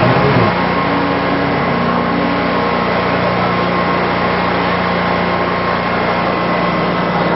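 A small engine running steadily at an even pitch, idling without revving, the machine that drives or powers the lit procession float.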